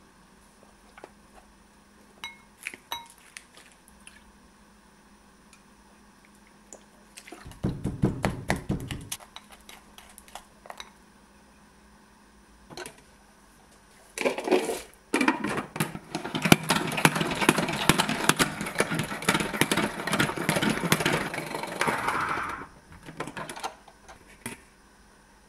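A metal-tipped spoon taps and clinks lightly against a glass mixing bowl, then scrapes briefly as it stirs thick gochujang chili sauce. About halfway through, a salad spinner's basket spins and rattles steadily for about eight seconds, drying shredded cabbage, then stops.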